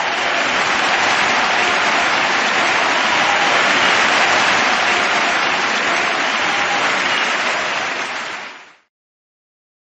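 Large crowd cheering and applauding, a steady din of clapping that fades and stops shortly before the end.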